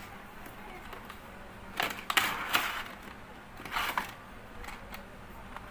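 A product box being opened and its packaging handled. There are two clusters of rustling, scraping noise, about two and four seconds in, and a few light clicks.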